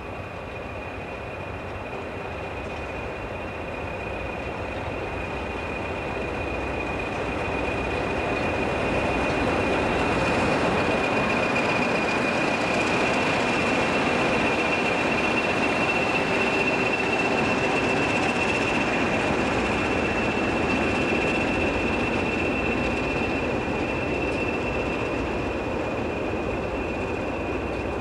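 Two Class 20 diesel-electric locomotives, each with an English Electric eight-cylinder engine, hauling a nuclear flask train past. The sound builds to its loudest as the locomotives go by, then eases as the flask wagons roll past. A steady high-pitched whistle sounds throughout.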